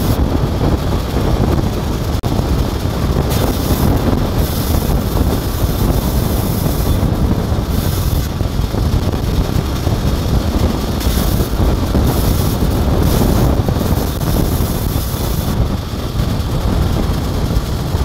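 Sawmill band saw running and ripping timber planks: a steady, loud machine drone with a higher hiss that comes and goes several times as the blade cuts.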